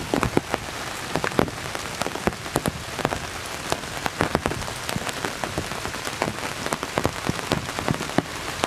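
Heavy rain falling on the woods, heard from inside a hunting blind: a steady hiss with many sharp, separate drop taps close by.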